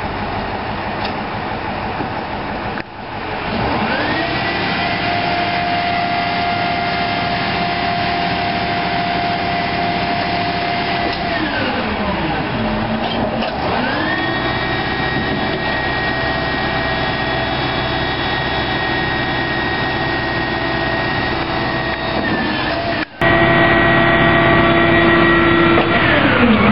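Leach 2R-II rear-loader garbage truck's diesel engine revving up and holding high revs to drive the hydraulic packer as it crushes a couch. The revs climb about three seconds in, hold, sink back around eleven seconds, climb again and hold; the sound jumps suddenly louder near the end, where the revs fall once more.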